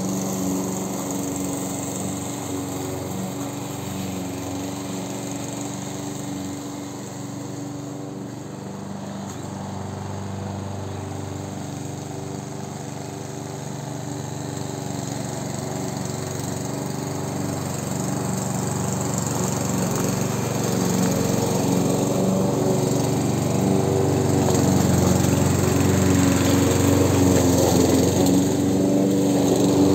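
Amber Line-B class 4in1 petrol push lawn mower running steadily while cutting grass, its engine note getting quieter as it moves away and then louder again as it comes back.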